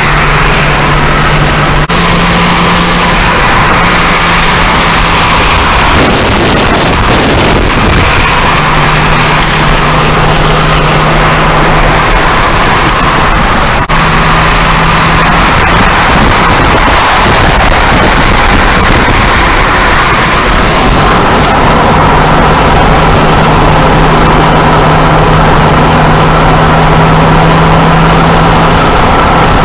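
Loud road and wind noise inside a car's cabin at motorway speed, with a low steady hum that fades out and returns several times.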